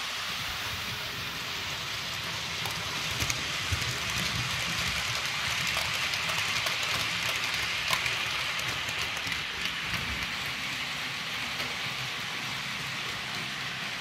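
H0-scale model freight train hauled by a PIKO SU46 model diesel locomotive, rolling along the layout's track with a steady rattling hiss of wheels on rails and small clicks at the rail joints. It grows louder about halfway through as the wagons pass close by.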